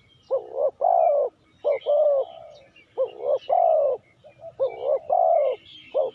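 Spotted dove cooing: a phrase of one or two short coos followed by a longer falling coo, repeated four times about every second and a half. Faint chirps of small birds sound behind it.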